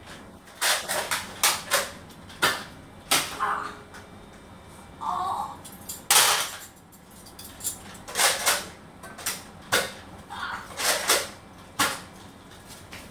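A series of sharp clacks and knocks at an irregular pace, some in quick pairs, with the loudest a little past the middle.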